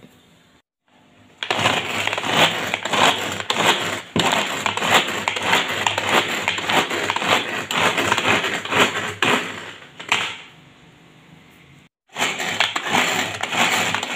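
Hand-pull mini vegetable chopper worked with quick repeated pulls of its cord: the spinning blades clatter and chop vegetables against the plastic bowl. It stops for a moment and starts again near the end.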